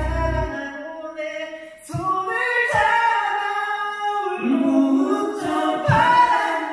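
Male voice singing a line of a Korean pop ballad into a handheld microphone, quiet at first and then opening up about two seconds in into sustained high notes.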